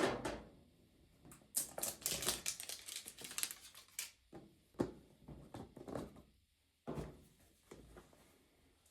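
Household items being handled in a small room: scattered clicks and knocks, with a dense stretch of rustling about one and a half to four seconds in.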